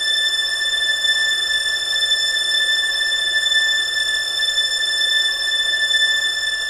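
A steady, high-pitched sound-design drone: one held tone with a stack of overtones that does not change in pitch, over a constant hiss.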